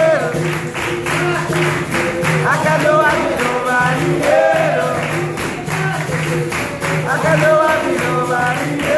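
Live capoeira roda music: berimbaus and an atabaque drum playing, with hand clapping and group singing over them.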